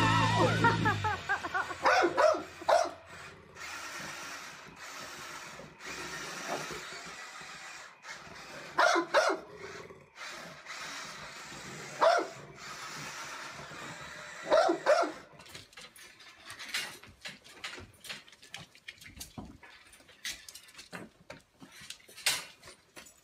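A dog barking in short, sharp barks spread across several seconds, some of them doubled. Later come quieter clicks and taps.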